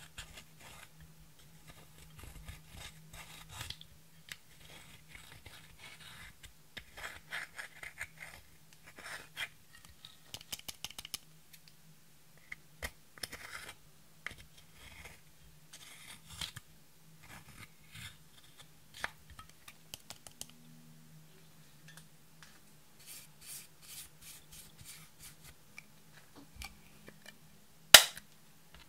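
Pressed eyeshadow being scraped and crumbled out of its palette pans with a thin metal-tipped tool: irregular scratching and scraping strokes, with one sharp click near the end.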